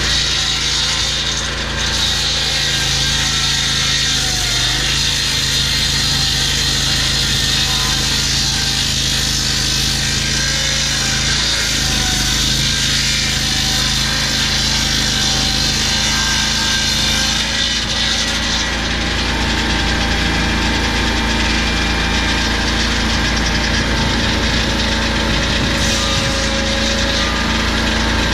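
Lucas Mill portable sawmill running steadily as its blade cuts through a log. The engine note shifts about eighteen seconds in.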